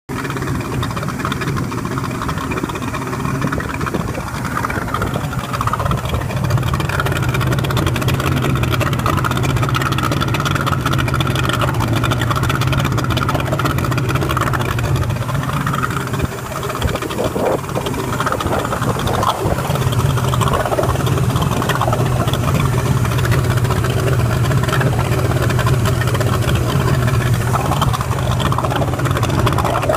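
Mariner outboard motor (a Mercury-built engine) running steadily at low speed, with a brief dip in level about halfway through; it is being fed cooling water through an external pickup hose.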